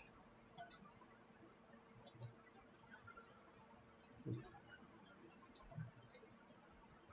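Faint computer mouse clicks, about five spread over the few seconds, the loudest about four seconds in with a low thump, over a faint steady hum.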